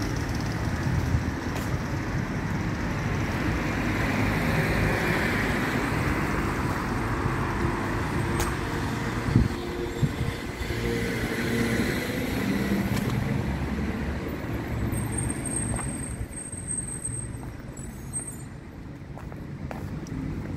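Street traffic: motorbikes and cars passing with their engines running, swelling as each goes by, with a single sharp knock about nine seconds in. The traffic thins and gets quieter in the last few seconds.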